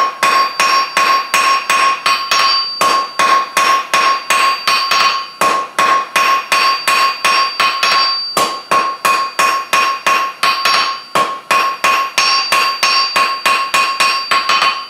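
Hand hammer striking a red-hot 3/8-inch square mild-steel bar on a JHM Shaper anvil, about three blows a second with a few short pauses, each blow followed by a clear ring from the anvil. The smith is drawing a taper on the bar end.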